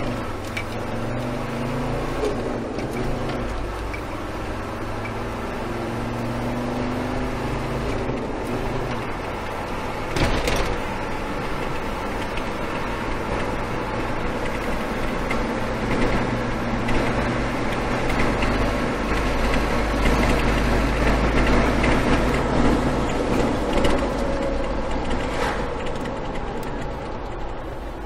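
SsangYong Korando KJ 4x4 engine running under way, heard from inside the cabin, its pitch shifting several times with throttle and road speed. A thump about ten seconds in.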